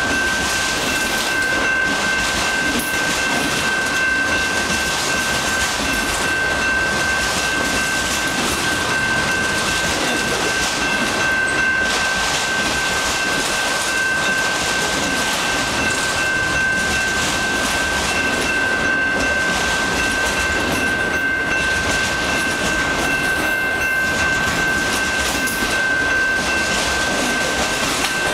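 Autorack freight cars of a long train rolling past close by: steady wheel and rail noise, with a steady high whine running throughout.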